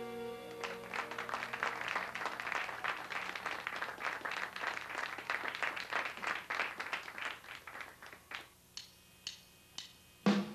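A small audience applauding as the band's last electric guitar chord rings out, the clapping thinning to a few scattered claps. Just before the end comes a single loud drum hit.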